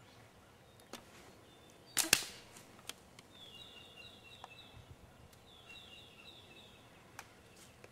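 A single sharp rifle shot about two seconds in, a crack with a quick second peak right behind it, fired from a scoped rifle. A songbird sings short repeated chirping phrases in the background, and a few faint clicks come before and after the shot.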